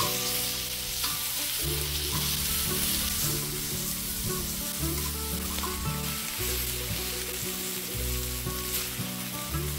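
Pork belly sizzling and frying on a large cast-iron pot-lid griddle over a wood fire, a steady hiss with now and then a light click of tongs or scissors on the metal.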